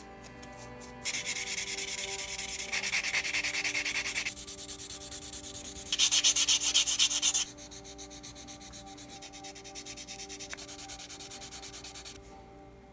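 Sanding stick and sanding sponge rubbed in rapid back-and-forth strokes over small plastic model-kit parts, in several spells. The loudest spell comes about six seconds in and lasts about a second and a half, followed by softer strokes that stop near the end.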